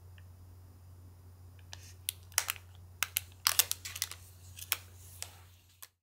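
Clear plastic gift bag crinkling in a string of sharp crackles as it is handled and twisted shut with a twist tie, from about two seconds in until shortly before the end. A low steady hum sits underneath.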